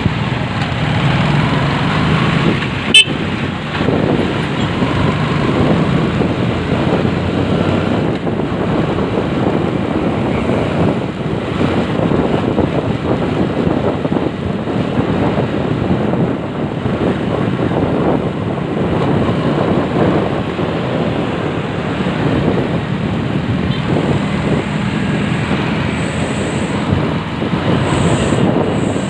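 Motorcycle running along a road, a steady rush of engine and road noise with traffic around it; a single sharp click about three seconds in.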